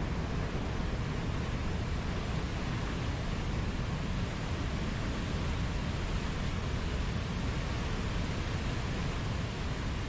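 Mountain waterfall: a steady, even rush of falling water, heaviest in the low rumble.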